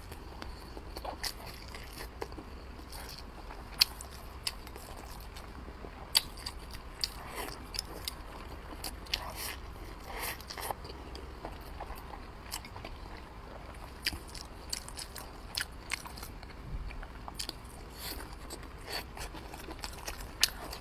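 Close-miked mouth sounds of eating: chewing and biting soft food, rice and braised wrapped pork. Short wet smacks and clicks come throughout, with a few sharper clicks about 4 and 6 seconds in.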